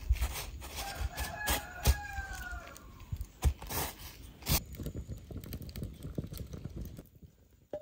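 A rooster crows once in the background, one long call lasting about two seconds that starts about a second in. A few sharp taps or clicks sound around it.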